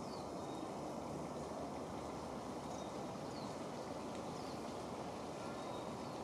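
Steady low outdoor background rumble, with a few faint, brief high chirps scattered through it.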